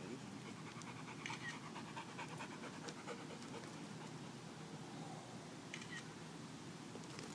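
Golden retriever panting steadily with its mouth open, close to the microphone.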